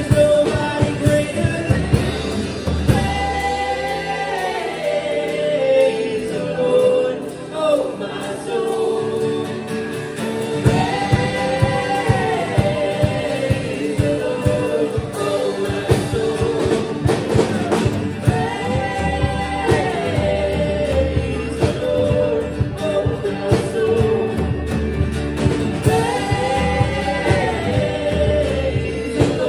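Live worship band playing and singing a congregational song: singers over acoustic guitar, violin and drums. The drums and bass come in fuller about ten seconds in.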